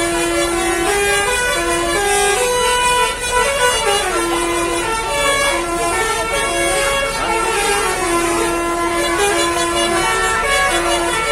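Basuri 'telolet' multi-tone bus air horn playing its tune: several horn notes sounding together, stepping up and down in pitch every fraction of a second, some notes held longer.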